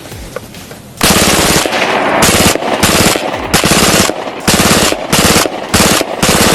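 FN P90 submachine gun, chambered in 5.7×28mm, firing fully automatic. After about a second there is a string of roughly eight or nine short bursts with brief gaps between them, each a rapid rattle of shots at a very fast rate of fire.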